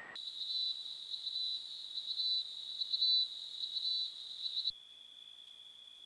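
Night insects trilling steadily at a high pitch, swelling and fading irregularly. About four and a half seconds in, the sound cuts abruptly to a different, slightly lower steady trill.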